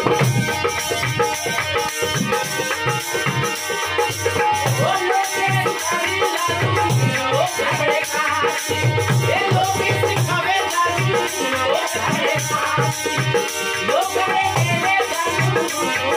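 Live Rajasthani folk music: a harmonium and a rope-laced dholak drum beaten by hand keep a steady rhythm, with a shaken tambourine jingling. About five seconds in, a man's singing comes in over the playing.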